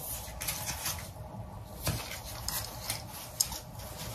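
Faint rustling and a few light clicks: hands stretching an elastic headband and pulling it on over a wig.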